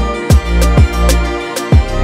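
Background music with a beat: a deep kick drum under sustained chords.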